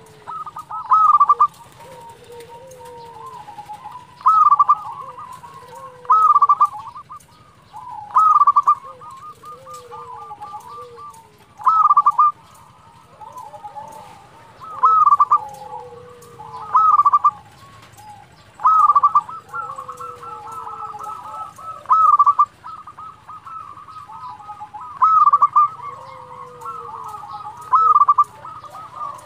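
Zebra dove (perkutut) cooing its staccato song: loud short phrases repeating about every two seconds, with fainter rapid trilling and a low falling note between them.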